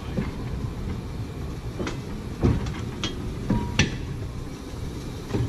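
Steel wheels of an old streetcar rolling slowly through a newly laid track switch: a low rumble broken by several sharp clanks and clicks as the wheels cross the joints, with a brief metallic ring about three and a half seconds in.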